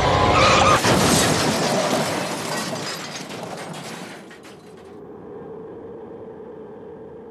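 Car crash: a loud impact about a second in, with glass shattering and debris rattling that fades away over the next few seconds, leaving a faint steady hum.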